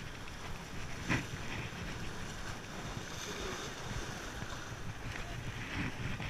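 Wind buffeting the microphone over surf washing against jetty rocks, with one brief louder rustle about a second in.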